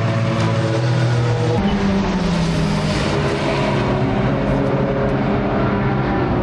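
Racing car engines running hard on a circuit. The engine note changes about a second and a half in, then slides down in pitch near the end as a car passes.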